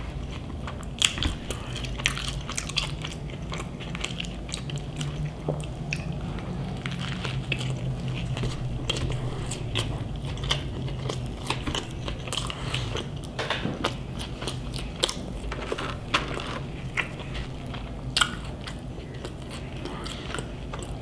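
Close-up chewing of a bite of Burger King Whopper: wet mouth smacks and clicks, steady biting and chewing. A low hum runs through the middle stretch.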